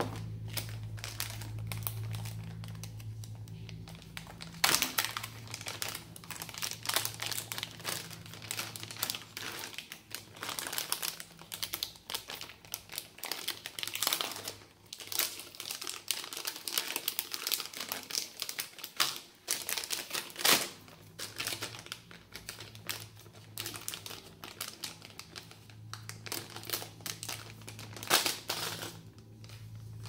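Plastic packaging bag around a keyboard crinkling and crackling as it is handled and pulled open, with a few louder snaps of the plastic.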